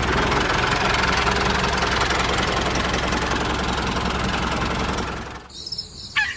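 Mini tractor engine running steadily, then cutting off sharply about five and a half seconds in.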